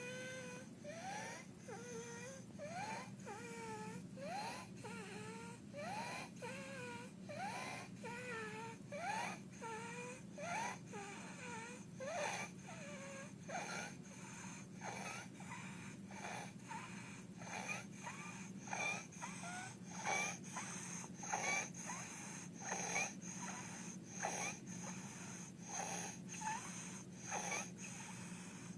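A child with croup breathing fast, with stridor on each breath, a little more than one breath a second. Each breath carries a short squeaky tone that rises in pitch, and the breaths turn noisier and less tuneful later on. The stridor is the sign of a narrowed upper airway.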